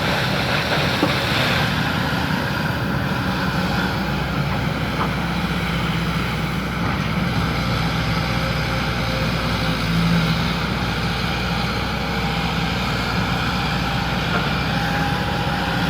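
Excavator's diesel engine running steadily at working revs.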